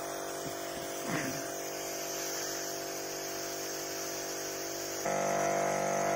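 The 12-volt electric pumps of a portable double-pump battery sprayer running with a steady electric hum while spraying under pressure. A little past five seconds the hum jumps louder.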